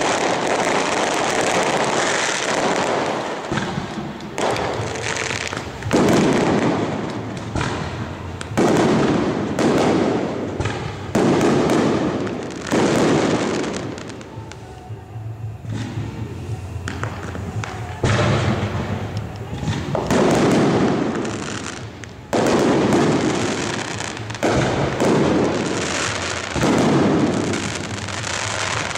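Aerial fireworks shells bursting one after another, a sudden boom about every two seconds, each trailing off, with a quieter lull near the middle.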